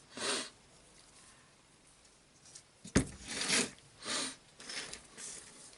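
Parts of a cordless jigsaw being handled during reassembly: a sharp click about three seconds in, then several short scraping and rubbing sounds.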